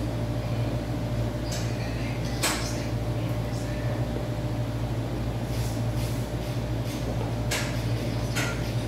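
A few short clicks and clanks from a Marcy home gym's Smith-machine station during a set on the bench, spaced a second or more apart, over a steady low hum.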